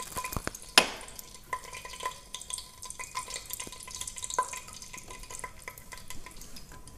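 Whole spices (cloves, cardamom pods, cinnamon sticks and bay leaves) dropped by hand into hot oil in a pressure cooker, crackling and sizzling throughout, with one loud sharp click about a second in.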